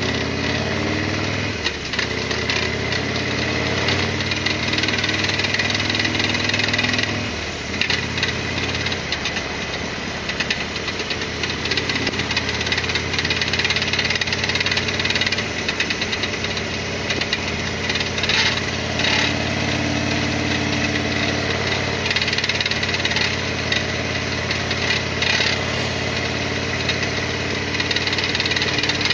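Harley-Davidson Sportster XL1200R's air-cooled 45-degree V-twin running under way, heard from a helmet chin-mounted camera, with the engine speed changing about a second in and again around 7–8 s in. Intermittent rattles and knocks come through over the engine: the noises the owner is chasing and says relocating parts did not get rid of.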